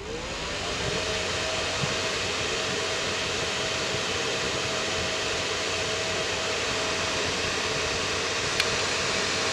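Electric cooling fan, most likely the welding machine's own, spinning up when switched on, running steadily with an even rush of air and a steady hum, then winding down near the end.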